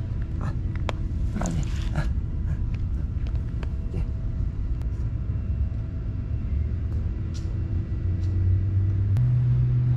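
A motor vehicle engine running nearby: a steady low hum that steps up in pitch and gets louder near the end. A brief rustle and a few light clicks about a second or two in.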